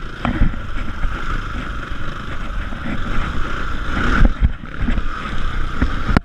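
Dirt bike engine running as the bike is ridden along a rough bush trail, with wind buffeting the microphone and a few low knocks from the rough ground, loudest about four seconds in.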